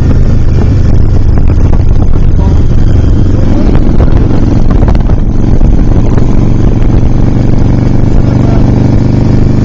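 Motorcycle engine running steadily at highway speed, with a heavy rumble of wind noise on the microphone.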